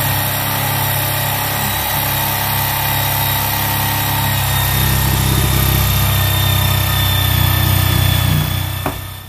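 Cordless jigsaw cutting through the trunk of a Christmas tree, its motor running steadily for about nine seconds and then winding down and stopping near the end.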